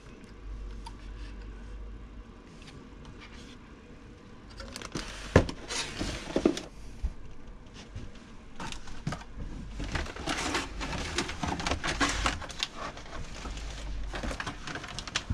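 Packaging being handled: plastic wrapping crinkling and cardboard rustling as wrapped parts are lifted out of a box. There is a sharp knock about five seconds in, and the crinkling grows denser in the second half after a quiet start.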